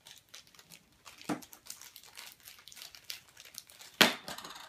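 Clear plastic bag around a small toy figure crinkling and rustling as it is handled and opened by hand, with a louder crackle just after a second in and the sharpest, loudest crackle near the end.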